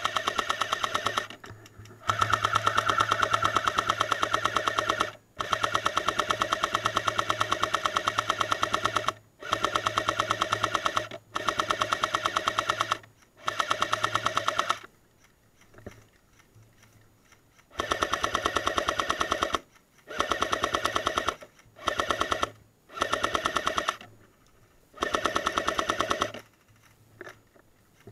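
Airsoft M60 support gun firing long fully automatic bursts, about eleven in all, with a fast, even rattle and a steady mechanical whir. Some bursts last several seconds, with short pauses between them and one longer pause about halfway through.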